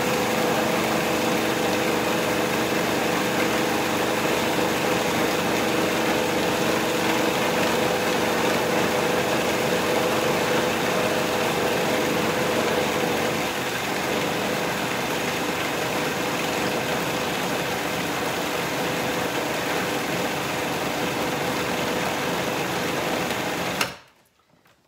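Magimix food processor motor running steadily as it processes a dry, crumbly mixture of peanuts, dates and goji berries, worked longer so the mixture warms, releases its oils and binds. It cuts off abruptly about a second before the end.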